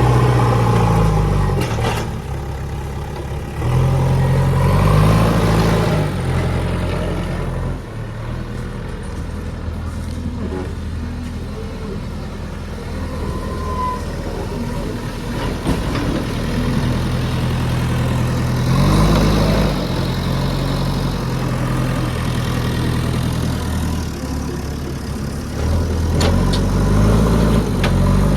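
Heavy diesel engine running under load, its revs rising and falling four times with steady running in between.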